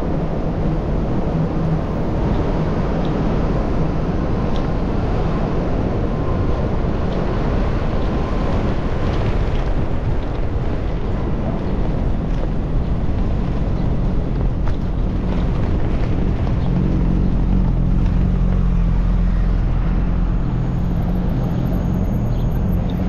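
Wind rushing over a GoPro's microphone as it rides along on a moving bicycle, a steady loud low rumble, with city street traffic beneath it.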